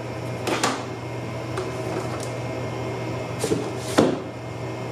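Cardboard packaging being handled and set down on a desk: a soft knock about half a second in and a sharper, louder knock about four seconds in, over a steady low hum.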